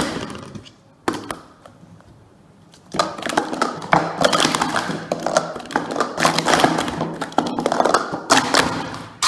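Plastic Speed Stacks sport-stacking cups clacking against each other and the mat as they are rapidly stacked up and down. A short lull with a single knock about a second in, then a dense run of clacks from about three seconds in.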